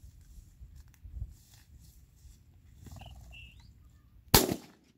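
A single 12-bore shotgun shot, loaded with No. 8 shot, fired at a flushed quail about four seconds in, sharp and much the loudest thing here. Before it come low rustling steps through the crop and a brief high chirp.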